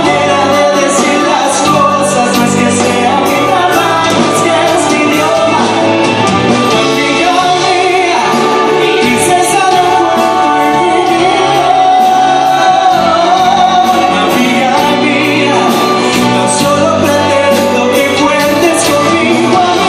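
Symphony orchestra playing a pop-ballad arrangement live, with a male lead singer's voice over it.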